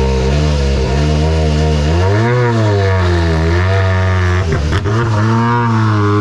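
Hyundai i20 N rally car's turbocharged four-cylinder engine revving hard, its pitch rising and falling several times as the car accelerates and lifts. About four and a half seconds in, a quick lift brings a few sharp cracks before it pulls again.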